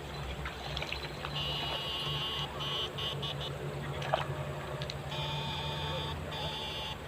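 High-pitched wavering buzzing that comes in stretches about a second long, over a low steady hum.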